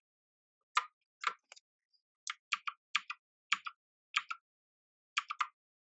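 Keys on an MK Disco TKL mechanical keyboard pressed one at a time, each press giving a pair of sharp clicks, in an irregular run of about seven presses with short pauses between them.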